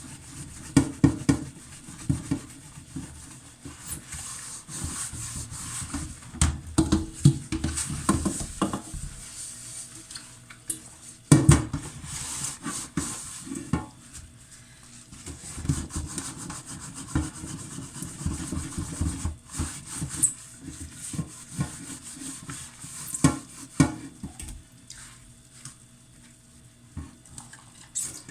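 Cooking pots being washed by hand: repeated scrubbing strokes against the pot, with irregular clanks and knocks of the pots, the loudest about a second in, near the middle and near the end.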